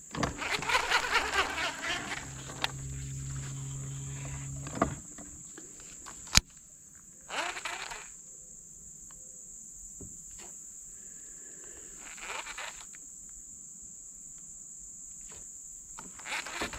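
Insects keep up a steady high-pitched buzz. For the first five seconds a low mechanical hum runs under some rattling and then cuts off abruptly, and a single sharp click follows a little over a second later.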